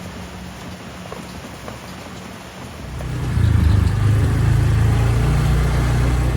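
Steady rain hiss, then about three seconds in a much louder low rumble of a motor scooter riding along, with wind buffeting the microphone.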